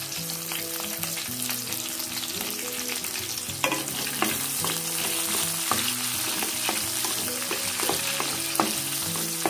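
Sliced onions sizzling in hot oil in a kadai, stirred with a wooden spatula that knocks against the pan now and then. Soft guitar music plays underneath.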